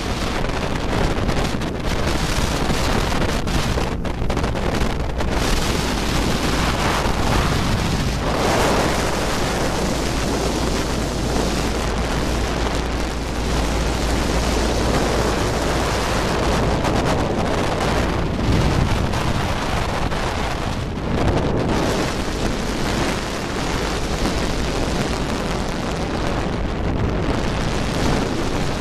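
Steady wind buffeting the microphone on a jet boat running along a river, with the rush of water and the boat's engine under it.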